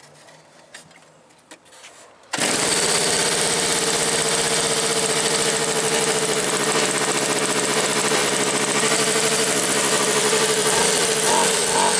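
A radio-controlled car's small nitro engine is started: a few faint clicks, then about two seconds in it catches and runs loud and steady at a high idle, its exhaust going through a custom muffler. Near the end the throttle is blipped and the engine note pulses up and down.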